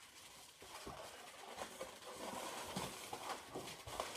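Latex modelling balloons being handled: irregular light rubs and squeaks as a long white 260 balloon is twisted and wrapped around an inflated balloon dog.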